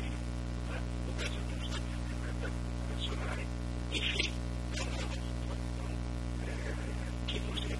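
Steady electrical mains hum with many overtones, with faint, indistinct speech over it.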